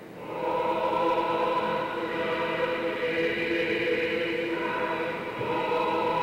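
Church choir singing liturgical chant unaccompanied, in long held chords. The singing swells in about half a second in, and a new phrase begins just after five seconds in.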